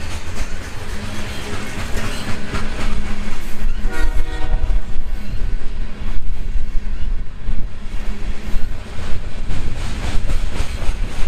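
Freight train of covered hopper cars rolling past close by, its wheels clacking over the rail joints over a low rumble. A train horn sounds briefly about four seconds in.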